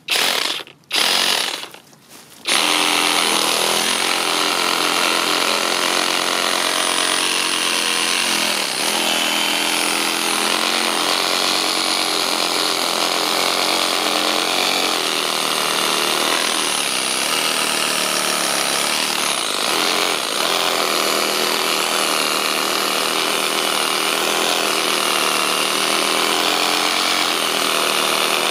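Cordless reciprocating saw cutting through the base of a small oak trunk at ground level. Two short bursts in the first two seconds, then it runs continuously through the hard oak wood.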